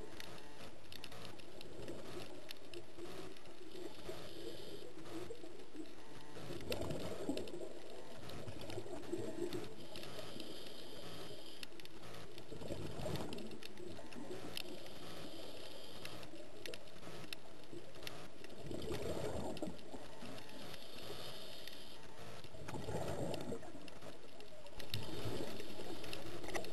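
A scuba diver breathing through a regulator underwater. The inhale hisses and the exhale comes out as a burst of bubbles, alternating about every six seconds. The last couple of seconds are a little louder.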